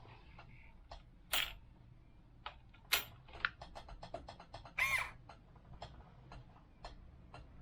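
Irregular light clicks and taps, a few of them louder, with one short pitched call about five seconds in.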